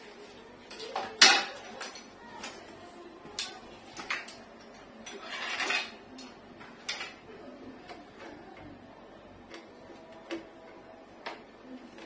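Clicks, knocks and plastic rattling as the casing of a Sharp split air conditioner's indoor unit is handled and taken apart with a screwdriver. A sharp knock about a second in, a longer scraping rattle around five to six seconds, and scattered lighter clicks.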